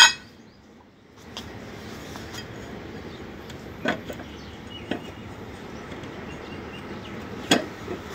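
Scattered metallic clinks and taps from tools and parts at the blade hub of an upturned rotary lawnmower: a sharp click at the start, then single taps about four, five and seven and a half seconds in, over a steady low background noise.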